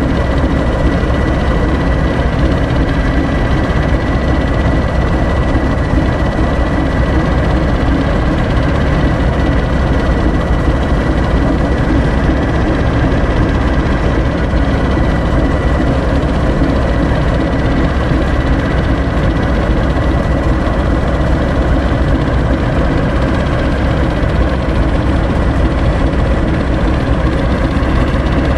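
British Rail Class 08 shunter's English Electric six-cylinder diesel idling with a steady, deep rumble. A thin high whine sits over it for about the first half, then fades away.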